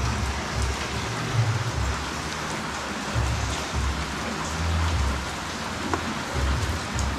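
Leafy greens cooking in a wok: a steady sizzling hiss as they are stirred, with a couple of clicks of a metal spoon against the pan.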